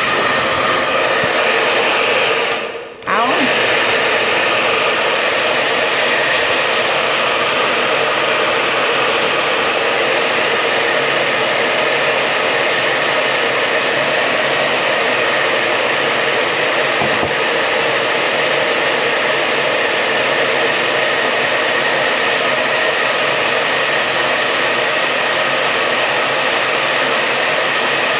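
Hand-held hot-air blower running steadily with a loud rushing noise. It cuts out for a moment about three seconds in and comes back on with a short rising whine as the motor spins up.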